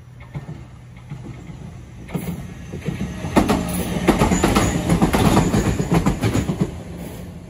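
Shizuoka Railway A3000-series electric train passing close by. It grows louder about two seconds in, runs at its loudest for about three seconds with the rapid clatter of wheels over the rail joints over a steady hum, then fades as it moves away.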